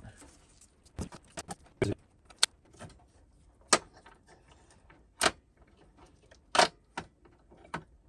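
Irregular light clicks and clinks of small metal parts being handled as a Chinese diesel heater's brushed blower motor is pulled apart by hand, its end cap and armature knocking together; a few sharper clicks stand out through the middle and near the end.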